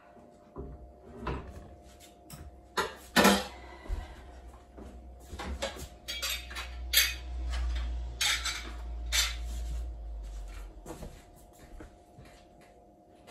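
Dishes and kitchen utensils being handled at the counter and sink: a run of clinks, clatters and knocks, the loudest about three seconds in.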